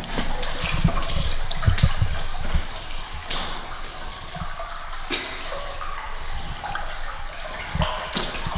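Footsteps and scuffs on a rubble-strewn tunnel floor, irregular steps and knocks over a hiss of movement.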